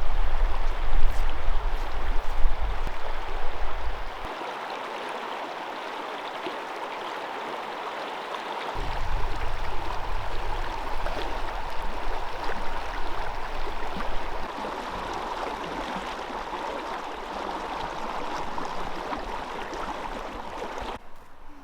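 River water running steadily, a continuous rushing hiss, with a low rumble of wind on the microphone for the first four seconds and again from about nine to fourteen seconds in.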